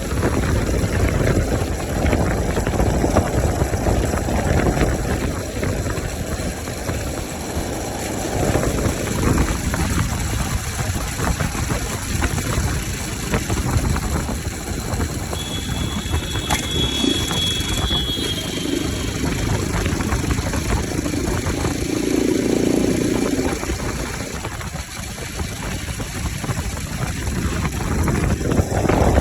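Bajaj Pulsar RS 200's single-cylinder engine running with its air filter removed, a low rumble that swells and eases several times as it is revved. A brief high whistle sounds about halfway through.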